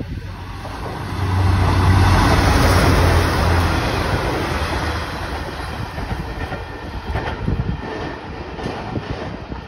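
V/Line Sprinter diesel railcar passing close by, its engine hum and wheel noise loudest from about one to four seconds in, then fading. A few sharp wheel clicks come later.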